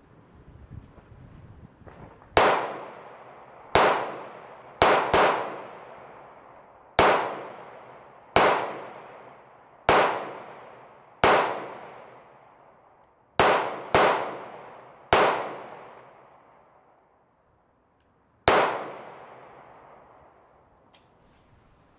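Smith & Wesson M&P 2.0 semi-automatic pistol firing about a dozen shots at an unhurried, uneven pace, with two quick double shots among them. Each loud crack trails off in a long echo under the metal roof of the shooting shed.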